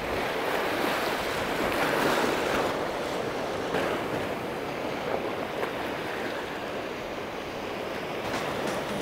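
Surf breaking and washing up a sandy beach: a steady rush of water noise that swells and eases every few seconds.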